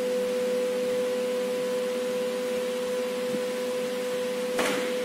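CNC router spindle motor running with a steady high whine over a hiss. A short burst of noise cuts in near the end.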